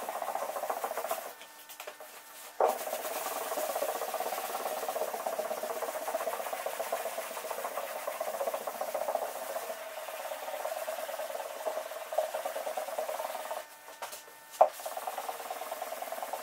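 Abrasive paper on a hand sanding block rasping back and forth across a car door panel in steady rapid strokes. It stops briefly twice, and each lull ends in a sharp knock as sanding resumes.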